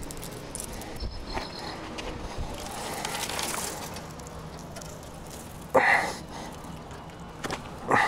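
A dog barks twice, one short bark about six seconds in and another at the very end, over low outdoor background noise.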